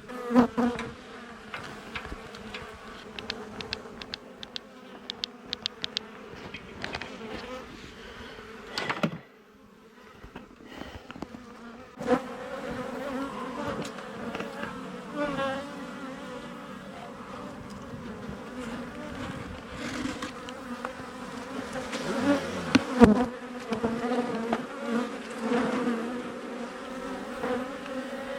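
Honeybee colony buzzing steadily, a low hum with a higher overtone, from a colony exposed during a cutout from a wall. A quick run of clicks comes a few seconds in, and there is a sharp knock near the end.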